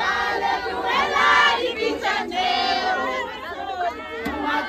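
A crowd of voices singing and calling out together, several high voices holding long, wavering notes.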